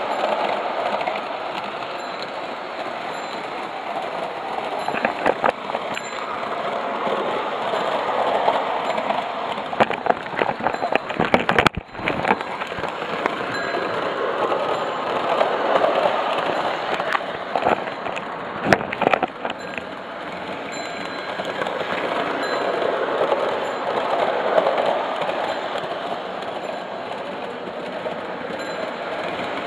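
Lionel O-gauge toy train, an NW-2 diesel switcher pulling freight cars, running around three-rail tubular track: a steady whirring rattle of motor and wheels that swells and fades as the train circles past. Sharp clicks and clacks come in clusters about a third and two-thirds of the way through.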